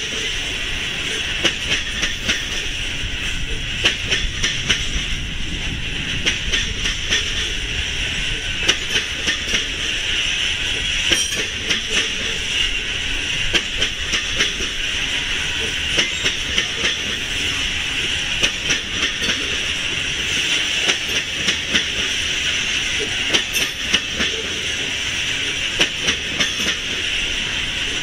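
Loaded coal hopper cars of a freight train rolling steadily past. A constant clatter of wheel clicks over the rail joints rides on a high, hissy rumble of wheels on rail.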